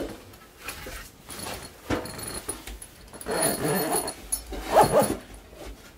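Split wood and kindling knocking against a small sheet-metal wood stove as it is loaded, a few sharp knocks early on. About halfway through come two wavering, whining pitched sounds, the second the loudest.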